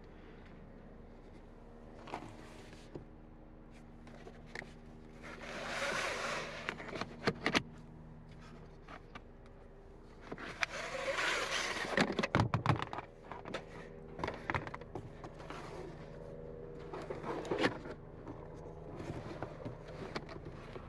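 Hands working in a hatchback's cargo area: two long rustling, scraping passes a few seconds apart, each followed by a cluster of plastic clicks and knocks, over a steady low hum.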